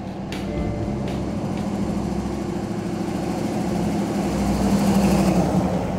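1974 Ford Bronco's 302 V8 running as the truck drives past, growing louder to a peak about five seconds in and then easing off.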